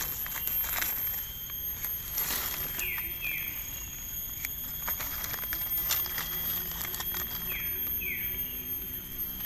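Small knife scraping soil off the base of a freshly picked amanita mushroom stem, with soft rustling among the leaf litter. Behind it runs a steady high-pitched tone, and two pairs of short falling chirps come about three seconds in and again near the end.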